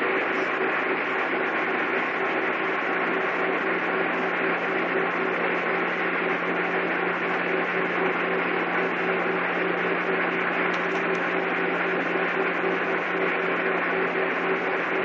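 Steady low hum with a constant hiss over it, unchanging throughout.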